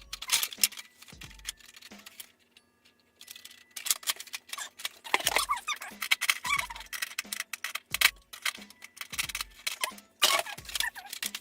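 Hard plastic and foam darts being handled on an Adventure Force drum blaster: a dense run of quick clicks and rattles with occasional dull knocks, typical of darts being pushed into the drum and parts fitted together.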